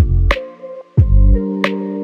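Electronic background music: deep bass drum hits about once a second alternate with sharp claps, over held synth chords.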